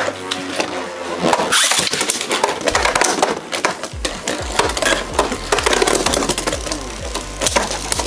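Two Beyblade Burst tops, Cho-Z Achilles and Super Hyperion, spinning and clashing in a plastic Beyblade stadium: a dense, fast rattling and scraping of plastic and metal, with many sharp hits.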